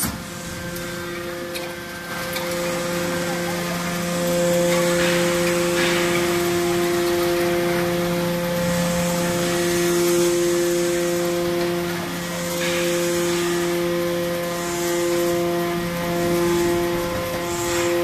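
Hydraulic scrap metal baler working under load: the pump and motor give a steady hum while the ram pushes through the press box. Metal scrapes along the chamber plates twice, about four seconds in and again near twelve seconds.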